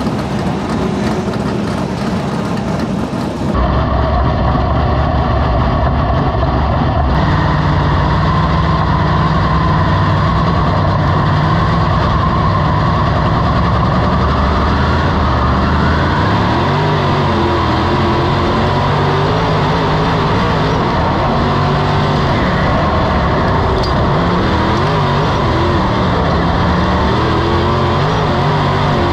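Dirt modified race car's V8 engine heard from inside the cockpit, running loud and steady at first. From about halfway through, the pitch rises and falls as the driver works the throttle around the track. Before the engine comes in, a few seconds of quieter vehicle noise from the pits.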